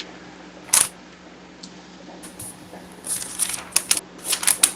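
Thin Bible pages being turned and flicked: a single crackle about a second in, then a quick run of paper rustles and crinkles near the end, over a faint steady hum.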